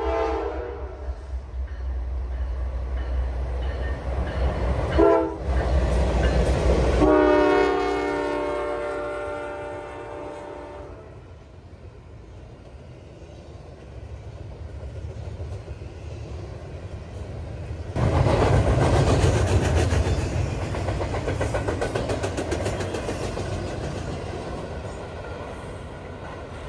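Norfolk Southern freight locomotive's air horn sounding several blasts for a grade crossing as the train approaches, the last one long, about four seconds, and dipping slightly in pitch. From about eighteen seconds in, a double-stack intermodal train rushes past with steady wheel-and-rail noise that slowly fades.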